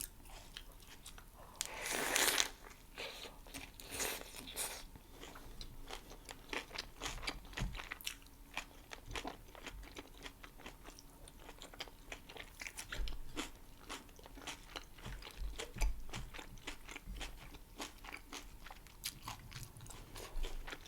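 Close-miked chewing and biting of a plant-based Impossible burger loaded with ginger and jalapeños, with a crunchy bite about two seconds in, another near four seconds, then steady moist chewing with frequent small crackles.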